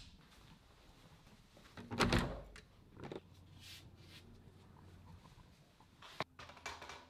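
Handling noise: a dull thump about two seconds in, then faint rustling and a sharp click about six seconds in.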